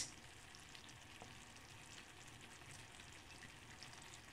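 Faint sizzle of a thick bolognese meat sauce simmering in a frying pan, with many tiny pops.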